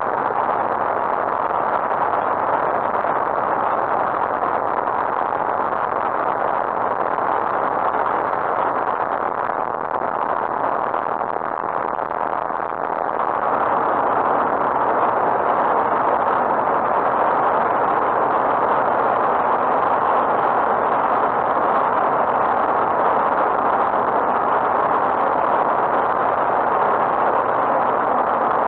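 Lightwing GR912 light aircraft in flight, heard from inside the cockpit: a steady drone of its Rotax 912 engine and propeller mixed with rushing air. It grows a little louder about halfway through.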